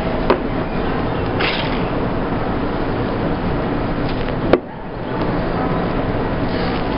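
Steady background noise of the bar room, with a click about half a second in and a sharper click a little past halfway, followed by a brief dip.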